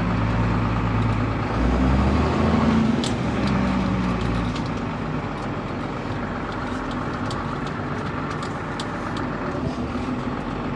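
New Holland TM140's six-cylinder diesel engine running under way, heard from inside the cab as the tractor drives slowly in gear. The engine note swells about a second and a half in, then drops back and settles quieter from about four and a half seconds on, with a few light clicks and rattles over it.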